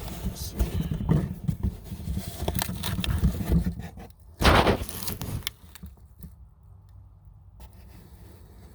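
Handling noise from the camera being moved and set in place: irregular rubbing and scraping on the microphone with small knocks, and one loud scrape about four and a half seconds in. It then settles to a low steady background.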